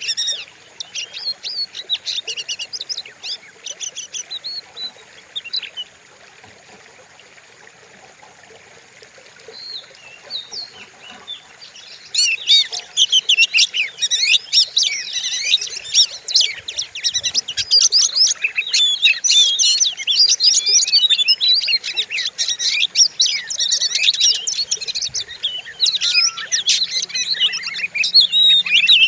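Oriental magpie-robin (kacer) singing a fast, varied song of sharp chirps and whistles. It goes almost quiet from about six seconds in, then resumes about twelve seconds in with a dense, unbroken stream of song.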